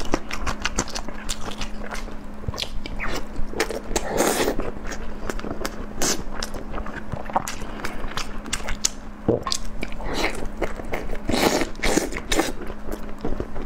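Close-miked chewing of a full mouthful of food, with dense wet smacks and mouth clicks and a few louder clusters of chewing, over a faint steady hum.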